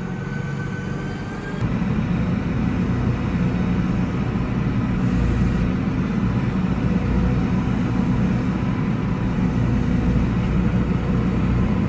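Massey Ferguson 5711 tractor engine running steadily while driving with a load of bales, getting louder and fuller about a second and a half in, then holding steady.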